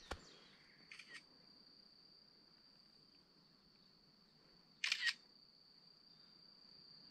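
Camera shutter clicks: a faint one about a second in and a louder one about five seconds in, over a steady high-pitched insect trill.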